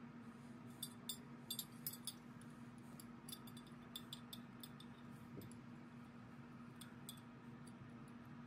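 Faint light clicks and ticks of small plastic and metal parts being handled as wire leads and the switch are fitted into a drill housing, mostly in the first half, over a steady low hum.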